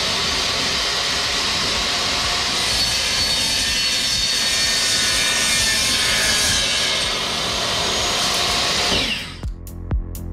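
Compound miter saw running and cutting through a metal tube, a steady loud whine that dies away as the blade spins down about nine seconds in. Electronic music with a steady beat comes in at the end.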